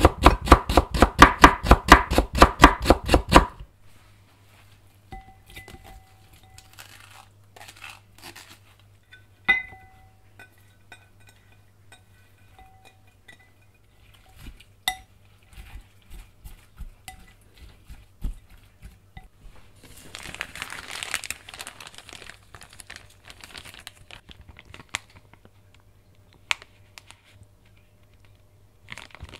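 A kitchen knife julienning carrot on a wooden cutting board, rapid, even chops for about three and a half seconds. Then scattered light clinks of chopsticks against a glass bowl as shredded vegetables are mixed, and later a plastic zip-top freezer bag crinkling in bursts.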